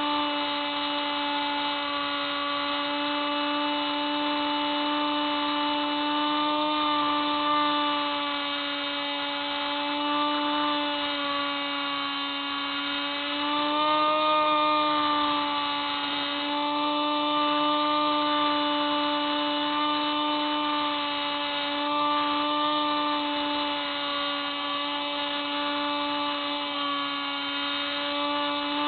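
Hubsan Spyhawk RC plane's electric motor and propeller, heard from on board, giving a steady whine throughout. Its pitch wavers slightly with the throttle, dipping a little and then rising briefly about halfway through.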